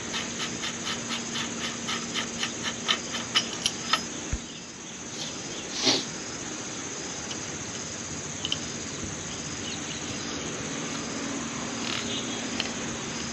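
Rapid, even metallic clicking, about four a second for roughly four seconds, then a single sharp knock. After that a steady hum of the workshop, from hand-tool work on a motorcycle front fork being dismantled.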